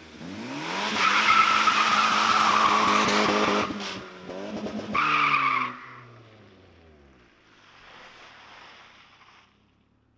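Saab 900 2.0 turbo revving hard as it launches in a burnout, its tyres squealing loudly for about three seconds. A second, shorter squeal comes about five seconds in, and then the engine note falls away as the car pulls off into the distance.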